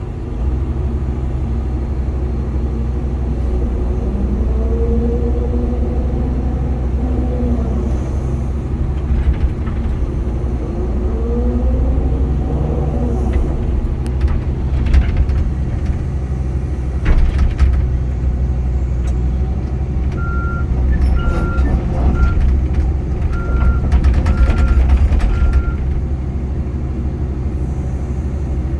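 Diesel engine of a Caterpillar 320CL excavator running steadily, with a whine rising and falling twice under hydraulic load and a few metallic clanks. Near the end a travel alarm beeps about six times.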